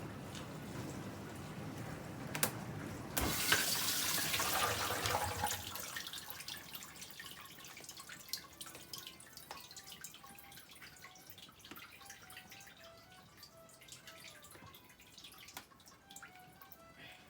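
Water spraying and sloshing inside a Miele G 4220 dishwasher during a wash, swelling to a louder burst about three seconds in, then dying down to faint drips and trickles.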